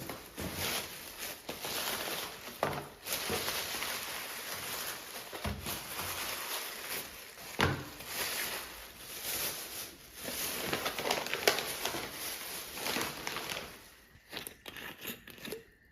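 Rustling and crinkling of bags being handled, with a few sharp knocks, dying down near the end.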